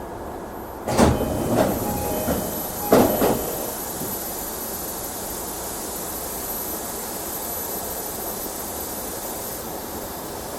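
Sliding passenger doors of an E233-2000 series commuter train car opening at a station stop: two sudden loud clunks with brief tones, about a second and about three seconds in, over the steady hum of the standing car.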